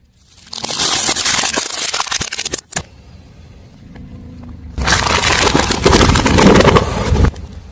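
Car tyre rolling over and crushing crunchy objects: two bursts of dense crackling and scraping, each about two seconds long, over the low rumble of the car.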